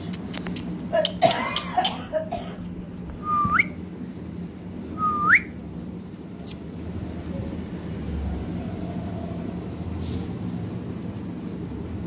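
Pet parakeet crinkling and tearing a paper wrapper with its beak, a crackling patch in the first couple of seconds, then two short whistles that each hold a note and flick sharply upward.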